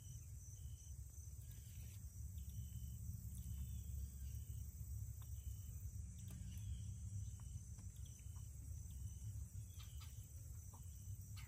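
Faint outdoor insect chorus: a steady high drone with short, evenly spaced cricket-like chirps a little faster than one a second, over a steady low rumble.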